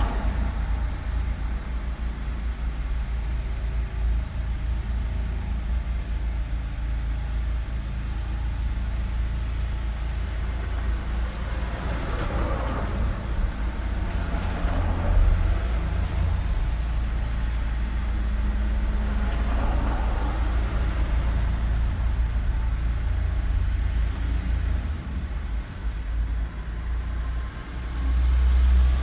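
Road traffic on a street: a steady low rumble of motor vehicles, with two vehicles passing by and swelling then fading near the middle.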